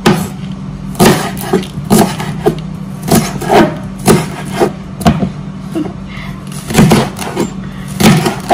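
Kitchen knife slicing a leek into thick rounds, each cut ending in a sharp tap of the blade on the cutting board, about once a second. A steady low hum runs underneath.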